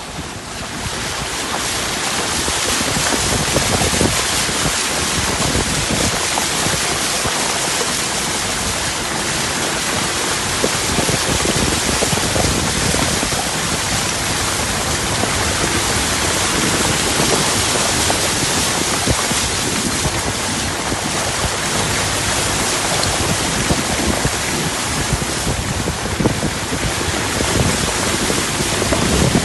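A steady, dense rush of water with many fine ticks running through it.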